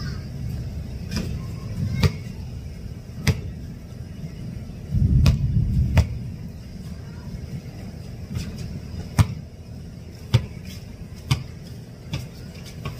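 A basketball bouncing and being shot at a hoop: a dozen or so sharp thumps at uneven intervals. Under them is a steady low rumble that swells about five seconds in.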